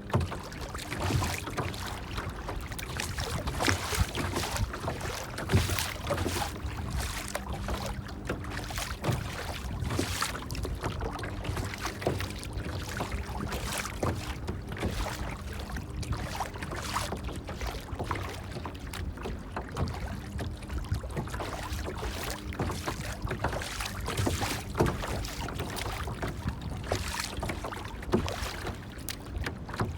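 Water splashing and lapping irregularly, with many small sharp splashes, over a faint steady low hum.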